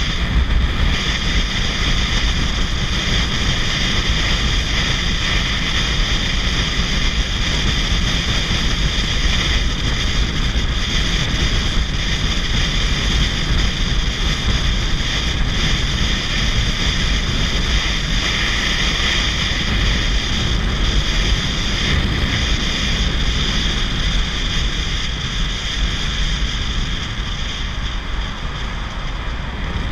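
Motorcycle riding at freeway speed, heard from a helmet-mounted camera: steady wind rush on the microphone over the engine and road noise.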